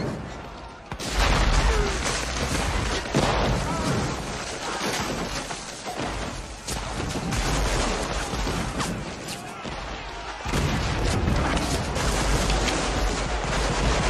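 Battle sound effects: continuous rifle gunfire mixed with deep booms of explosions or artillery. A heavy boom hits about a second in, and a louder run of booms starts about ten and a half seconds in.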